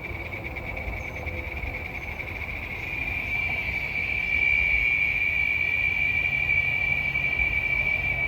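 Chorus of large cicadas buzzing, one steady high-pitched drone that pulses rapidly at first and swells louder about three to four seconds in, over a low rumble.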